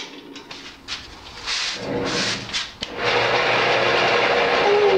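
A few short knocks and clicks, then a wood lathe switched on about three seconds in: the motor runs up and keeps a steady whir with the square-cornered, glued-up cherry blank spinning between centers.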